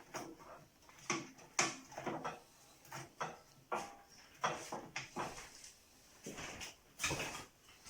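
A series of irregular knocks and clatters, about a dozen sharp hits spread unevenly with short pauses between them.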